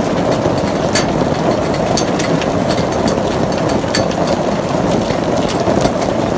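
Heavy rain with hail: a loud, steady rush of falling water with sharp clicks of hailstones striking, a few each second.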